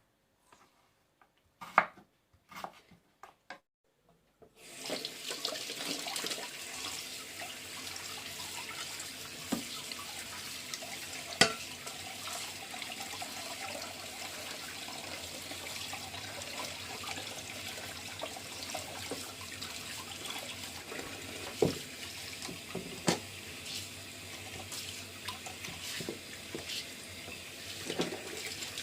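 Water running steadily from a kitchen tap into a sink, starting about four seconds in after a few knocks, with occasional sharp clinks.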